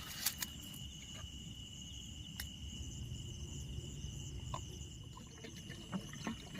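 Night insects trilling steadily on one high pitch, with a few faint clicks.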